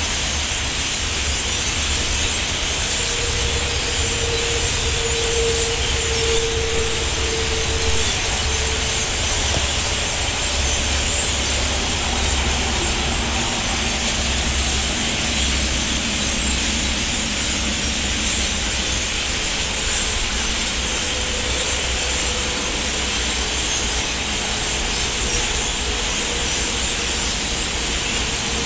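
Wind buffeting the microphone, a pulsing low rumble over a steady rushing hiss, with a faint hum through the first third.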